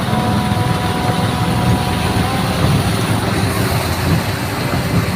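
Engine of a bemo, a small three-wheeled minibus, running steadily with a loud low rumble and a faint steady whine through the first half.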